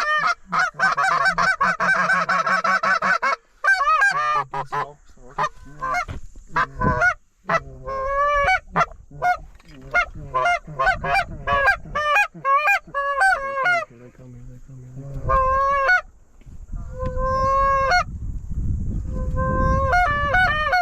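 Canada goose honking and clucking: a fast run of clucks, then single two-note honks that break upward in pitch, as a goose flock is called in to the decoys.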